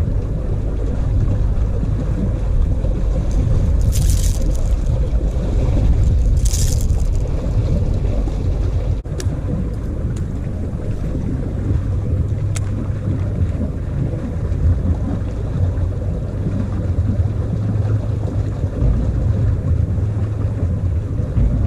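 Wind buffeting the microphone, a steady low rumble. Two short hissing noises come about four and six and a half seconds in, and a few faint clicks follow a few seconds later.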